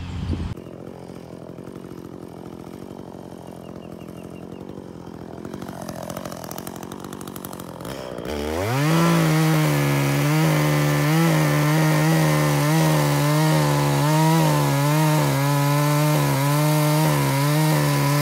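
Chainsaw revving up sharply about eight seconds in, then running at high speed with a slightly wavering pitch as it cuts into a fallen log.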